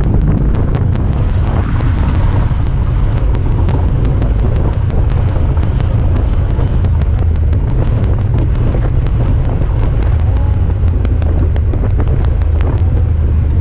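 Honda Talon 1000R side-by-side's parallel-twin engine running steadily under way, with wind on the microphone. A rapid string of sharp clicks runs over it; these come from the camera, not the vehicle.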